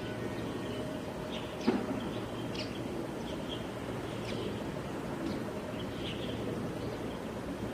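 Outdoor ambience: a steady low rumble like distant traffic, with short bird chirps scattered through it and a single sharp click about a second and a half in.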